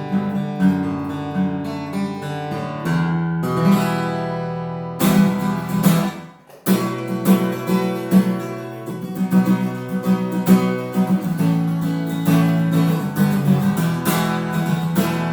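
Crafter bubinga TB-MAHO Plus steel-string acoustic guitar, strung with Elixir .012 strings, played in plucked and strummed chords. The playing breaks off briefly about six seconds in, then resumes with a firm strum.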